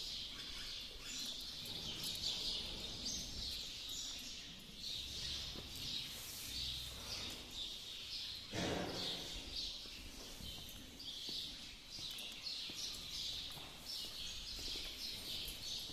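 Many small birds chirping continuously in a busy twittering chorus. A brief breathy rush of noise comes about halfway through.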